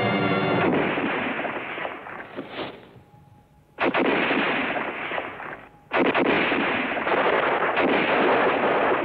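Film battle sound effects: dense gunfire mixed with blasts, thinning to a brief lull about three seconds in, then starting again suddenly near four seconds and once more near six seconds.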